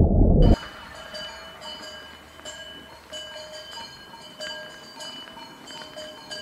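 Cowbells on a herd of walking cows ringing irregularly, several bells overlapping at a few different pitches. Before them, a loud low rumble cuts off suddenly about half a second in.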